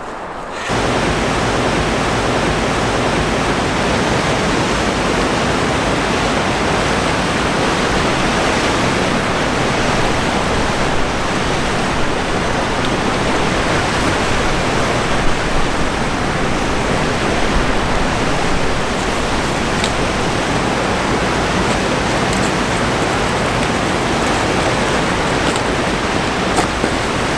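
Steady roar of rushing water from a waterfall on the Bear River, starting abruptly just under a second in and holding even throughout.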